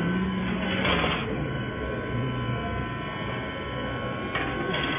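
Automatic welding machine for fan-shaped wire racks running, with a steady machine hum and a few short hissing bursts, about a second in and twice near the end.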